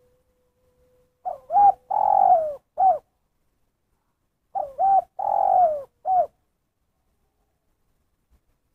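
Spotted dove (tekukur) cooing: two matching phrases, each a couple of short notes, a longer note falling in pitch, and a single short closing note, the 'kuk satu' call with its one final 'kuk'.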